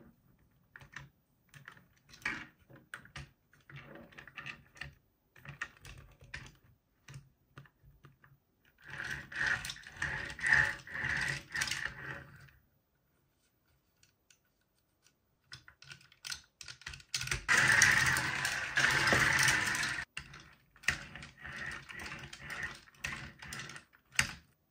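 Hands handling a toy and its packaging: irregular clicks and taps, with two longer stretches of dense rustling, the second one the loudest.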